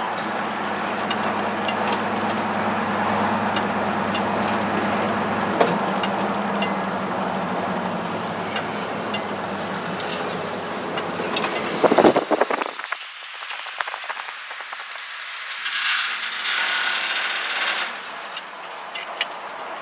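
A 1971 pickup truck under way, heard from the cab: steady running and driveline hum, on a truck whose U-joint the occupants take to be bad. About twelve seconds in there is a brief clatter, and the low hum drops away, leaving a quieter hiss.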